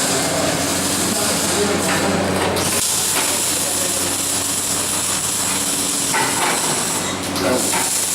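Electric arc welding: a steady hiss over a low machine hum, the hiss growing stronger about two and a half seconds in and dipping briefly near the end.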